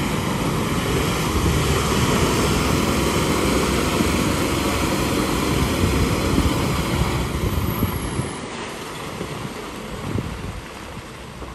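Heavily loaded multi-axle diesel truck creeping through deep mud, its engine working steadily under load. The sound drops off after about eight seconds as the truck moves past.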